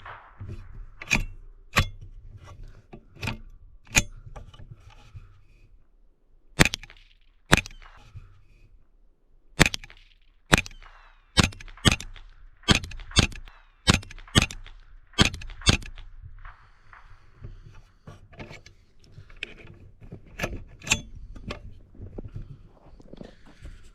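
.22 LR rifle shots, about sixteen sharp cracks at uneven spacing, coming quicker at about two a second from roughly 11 to 16 seconds in, followed by fainter clicks and knocks.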